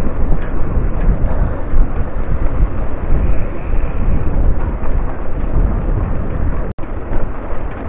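Wind buffeting the microphone of a camera on a moving mountain bike: a loud, uneven low rumble. It drops out for an instant near the end.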